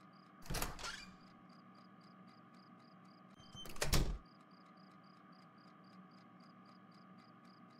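Night-time cricket chirping ambience, an even, rapid chirp at about four a second. Two brief, louder noises break over it: one about half a second in, and one that swells and stops just after four seconds.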